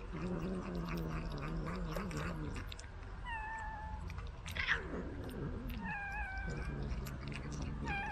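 Cats calling close up: a low drawn-out growl, three short falling meows, and one louder yowl about halfway through, then the low growl again near the end.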